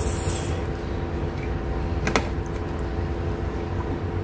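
Steady background hum made of several level tones, with one sharp click about two seconds in.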